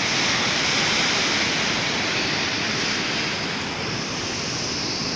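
Steady rushing noise of the sea, even and without any clear pitch or rhythm, fading slightly in the second half.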